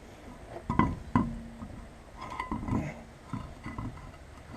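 Scattered metal knocks and clinks of parts and tools being handled during a wheel and brake job, one knock ringing briefly about a second in.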